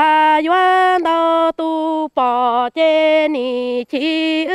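Hmong kwv txhiaj sung poetry: one unaccompanied voice chanting a chain of held notes about half a second each, every note bending down at its end, with short breaks between them.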